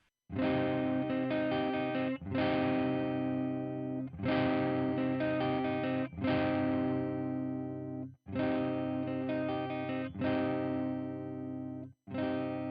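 Electric guitar on its neck pickup played through the Audiority L12X solid-state amp plugin, a Marshall JCM-style amp simulation: a chord struck about every two seconds and left ringing, twice cut off by a brief stop.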